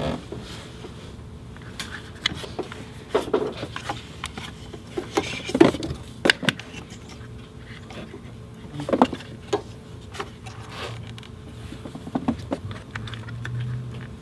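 Handling noise as an amplifier power wire and its fuse holder are moved around and laid against parts of a car's engine bay: scattered light knocks, clicks and brief scrapes at an irregular pace.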